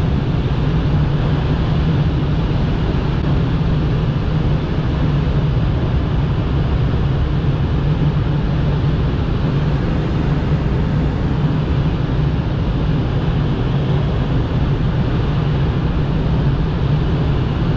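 Steady rush of air over a glider's canopy in engineless flight, heard from inside the cockpit, with a constant low drone beneath it.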